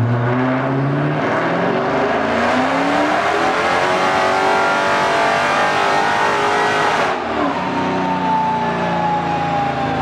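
Car engine pulling hard at full throttle while the driven wheel spins, its pitch climbing steadily for about seven seconds. It then cuts off suddenly and is followed by a single whine that slowly falls as things wind down.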